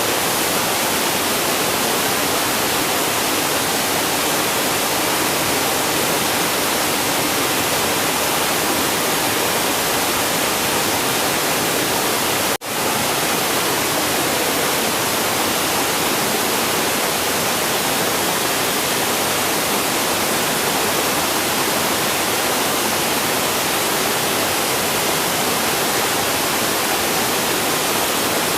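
River water rushing and flowing, a steady, even hiss. It drops out for an instant about halfway through, then carries on unchanged.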